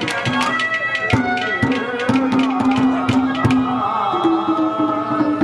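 Live Haryanvi ragni accompaniment: quick hand-drum strokes under a held, wavering melody line, with no singing to the fore.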